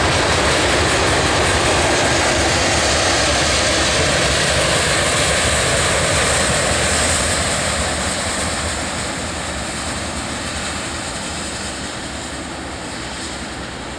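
Freight train of covered hopper cars rolling past, a steady noise of wheels on rail that fades from about halfway through as the last cars draw away.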